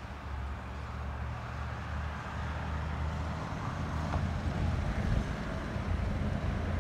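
A motor's steady low hum that grows a little louder, with a faint hiss over it.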